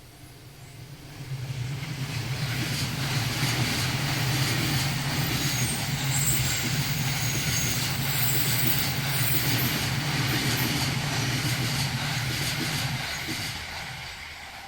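A train passing over the level crossing at speed, with wheels clattering over the rail joints and a steady low hum. It comes up quickly about a second in, stays loud for about twelve seconds, then fades. The crossing's warning bell rings at the start before the train drowns it out.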